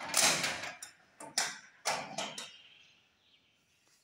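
Metal security grille rattling and clanking as it is handled: four or five sharp metallic clanks in the first two and a half seconds, each ringing briefly.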